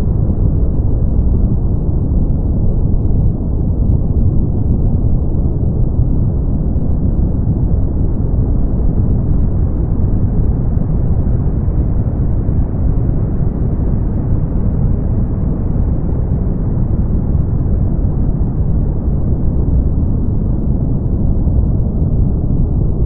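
Brown noise: a steady, deep, even rumble of shaped noise, strongest in the bass and with almost nothing in the treble.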